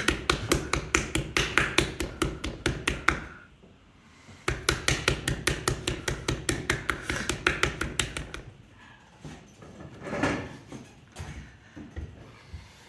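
Bare hands slapping a large lump of terra cotta clay being dry centred on a pottery wheel, without water. The slaps come fast and even, about five a second, in two runs with a short pause about three seconds in. After about eight seconds only a few scattered knocks are left.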